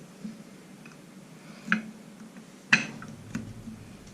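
Small metallic clicks of a flathead screwdriver working a steel retaining ring around into its groove on a power feed's cam plate: a few light ticks and one sharper, louder click nearly three seconds in.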